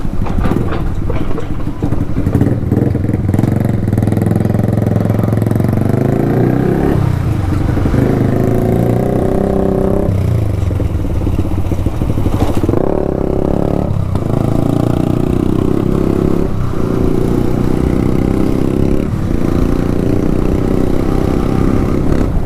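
Yamaha R15 V2's single-cylinder engine running loud through an Akrapovic exhaust with the dB killer removed, under way. The engine note climbs and drops off about five times as the throttle is opened and closed.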